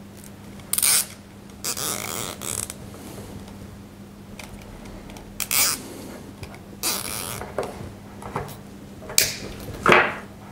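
Plastic cable ties being zipped tight through their ratchet heads: a series of short rasping bursts. About ten seconds in, a sharp snip as side cutters trim off a tie's loose tail.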